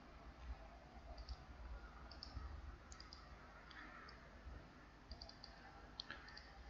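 Faint computer mouse clicks, short sharp ticks often in close pairs, about one a second, over a low steady hum.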